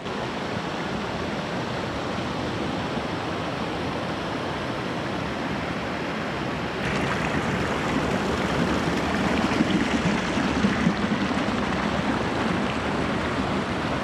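Shallow river rushing over bedrock and pouring through a bamboo fish trap: a steady rush of white water that grows louder about seven seconds in.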